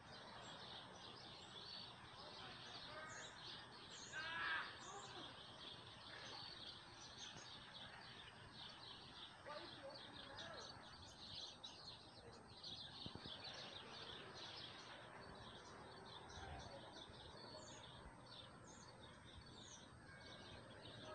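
Faint birds chirping and twittering, with one louder warbling call about four seconds in, over a low steady background hum.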